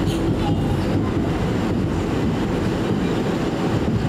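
Steady low rumble of an R179 subway car running at speed, heard from inside the car: wheels on the rails and the car body.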